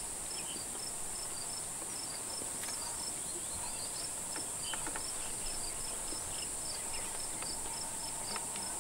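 Insects in the bush: a steady high-pitched insect drone with a regular chirp repeating about three times a second.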